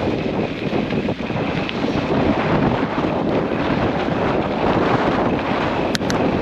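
Steady rush of wind on the microphone over the running noise of a vehicle driving a dirt trail, with a short click near the end.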